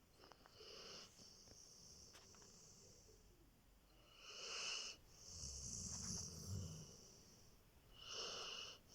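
Saint Bernard snoring in its sleep: slow, wheezy breaths with a whistling hiss, and a low snore about halfway through.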